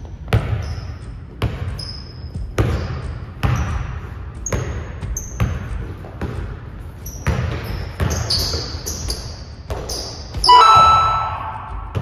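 Basketball dribbled on a hardwood gym floor, thudding about once a second with echo from the hall, with short high sneaker squeaks as the players cut. About ten and a half seconds in comes a louder, sharp squeal.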